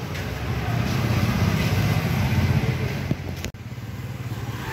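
A motor vehicle engine running, a steady low rumble over street noise, which drops out for a moment about three and a half seconds in.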